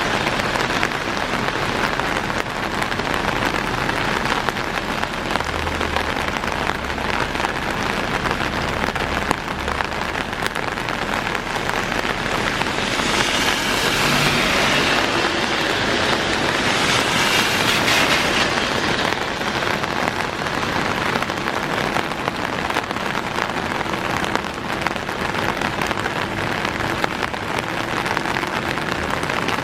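Heavy rain pouring down steadily. Around the middle, a car passes on the wet road, its tyre hiss swelling and then fading over several seconds.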